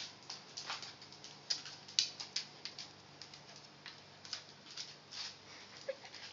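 Dogs' claws clicking and scrabbling on a hardwood floor as two dogs tug at a rope toy: irregular sharp ticks, several a second, loudest about two seconds in.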